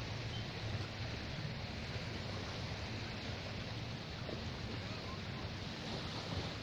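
Steady beach ambience: wind noise on the microphone and the wash of surf.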